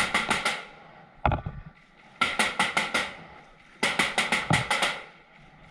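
Paintball markers firing in rapid bursts of five to seven shots each, three bursts with a lone shot between the first two.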